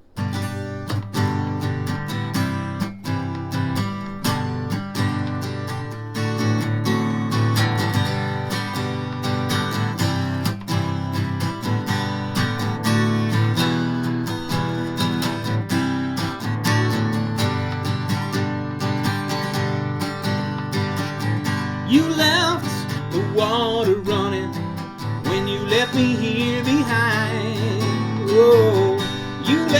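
Strummed acoustic guitar playing the intro of a soul song, a steady rhythmic accompaniment that starts suddenly. About 22 seconds in, a wavering melodic line that sounds like a wordless vocal comes in over it.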